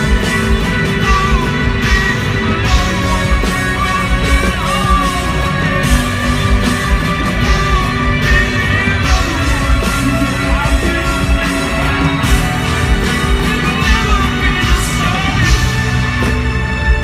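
A rock band playing live at concert volume, with sustained guitar and bass lines over a steady drumbeat and a man singing at times.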